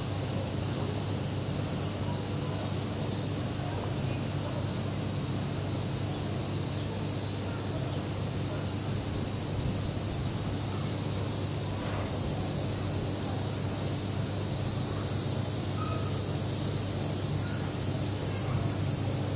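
Steady high-pitched drone of a summer insect chorus, with a low steady hum underneath.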